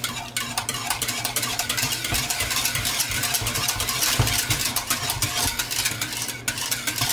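Metal wire whisk beating thick gravy in a metal saucepan: a fast, continuous scraping and clicking of the wires against the pan, over a low steady hum.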